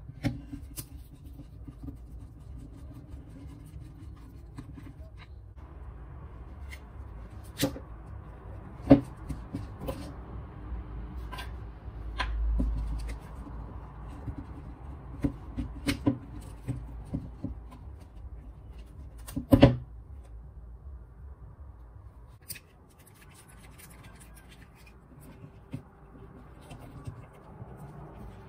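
Dongcheng angle grinder's plastic rear housing being handled and taken apart by hand with a screwdriver: scattered clicks and knocks of plastic and metal, with rubbing and fumbling in between. Two knocks are sharper than the rest.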